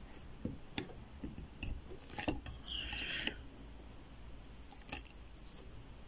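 Scattered light clicks and taps, with a short scraping rustle about two and a half seconds in: hands handling a brass euro cylinder lock and lock-picking tools.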